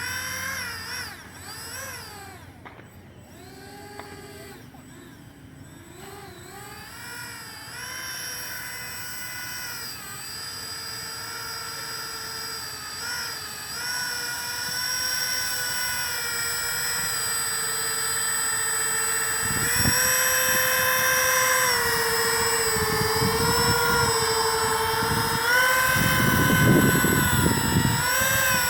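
Electric ducted fans of an RC Airbus A330 model airliner spooling up and down as it taxis: a high whine whose pitch rises and falls with the throttle and grows louder from several seconds in. Low rumbling bursts come in around twenty seconds in and near the end.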